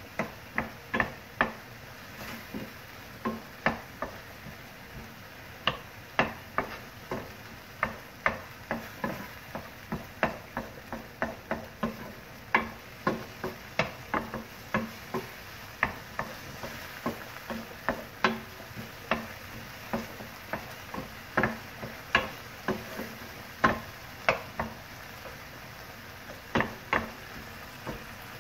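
Wooden spatula tapping and scraping against a nonstick frying pan in irregular strokes, about one or two a second, as chicken mince with onion and bell pepper is stirred. A steady sizzle of the frying runs underneath.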